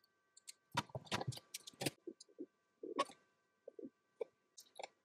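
Scattered light clicks and taps of a circuit board and resistor leads being handled while a replacement resistor is fitted, over a faint steady high-pitched hum.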